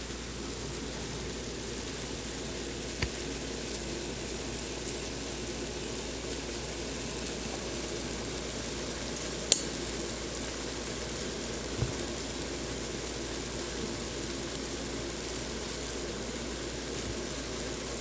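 A mass of mealworms crawling and chewing through grain, making a steady fine crackling hiss like sizzling. Three short sharp clicks break through, about three seconds in, about nine and a half seconds in (the loudest), and about twelve seconds in.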